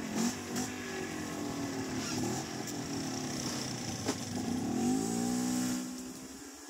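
ATV engines running as the four-wheelers ride along a dirt trail, with a few sharp knocks early on and about four seconds in. The engine pitch rises for a second or two as it accelerates, then the sound drops away near the end.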